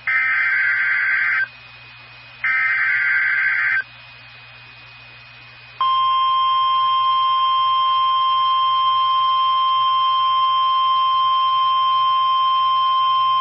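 NOAA Weather Radio Emergency Alert System signal. Two warbling digital SAME header bursts of about a second and a half each, a second apart, are followed about six seconds in by the steady 1050 Hz warning alarm tone, which opens a severe thunderstorm warning broadcast.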